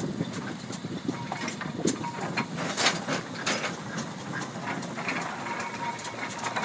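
Steam traction engine running as it is driven slowly, with a steady mechanical clatter and irregular clicks and knocks.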